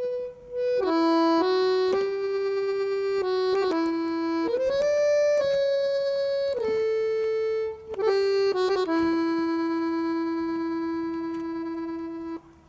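Music: a slow solo instrumental melody of long held notes, one note at a time, ending on a long sustained note that stops suddenly near the end.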